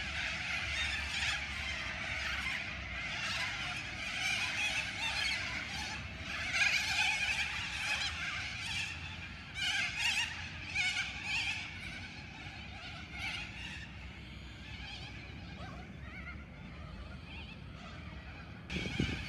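A large flock of little corellas screeching, many harsh calls overlapping; they are dense at first and thin out to scattered calls after about twelve seconds.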